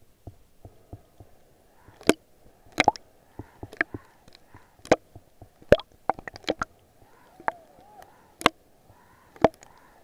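Underwater recording: irregular sharp clicks and knocks, a dozen or so, scattered over a faint murmur of water.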